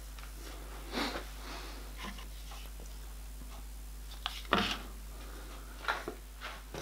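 A few light clicks and rustling knocks from hands handling the drill press set-up, the loudest about four and a half seconds in, over a faint steady hum; the drill motor is not running.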